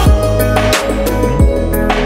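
Background music with a steady beat and a deep bass.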